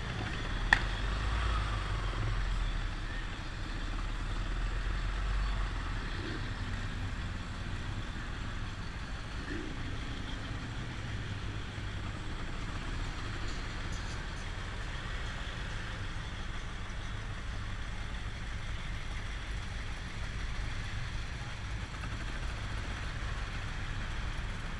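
A 1974 Honda XL250's single-cylinder four-stroke engine running steadily, mixed with the rumble of the surrounding car traffic. A single sharp click comes just under a second in.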